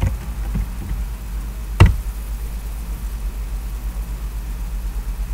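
Computer keyboard typing: a few light key taps, then one sharp key press about two seconds in, over a steady low hum.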